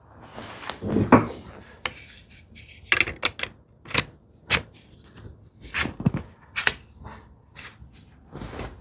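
Hand tools being handled and set down on a wooden workbench: a run of irregular sharp clicks, taps and knocks of metal and wood.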